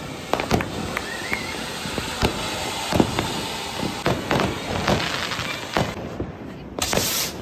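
Diwali firecrackers going off: a string of sharp bangs and cracks at irregular intervals, some louder and closer than others, with a brief hissing rush near the end.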